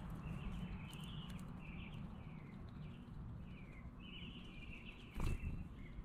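A backyard songbird singing a run of short, downward-slurred chirps, one to two a second, over a steady low background rumble. A single sharp knock sounds about five seconds in.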